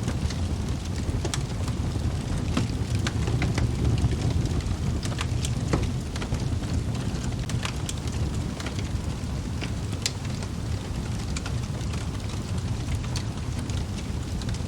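Wood fire burning in a fireplace: a steady low rumble of flames with many scattered sharp crackles and pops from the burning logs.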